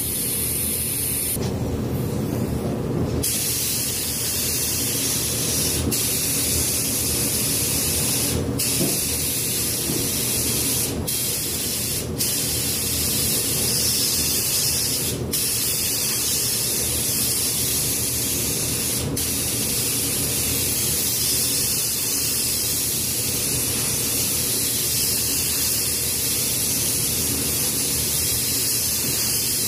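Gravity-feed spray gun hissing steadily as it atomises paint with compressed air. It cuts out for a couple of seconds near the start and drops out briefly several more times between passes.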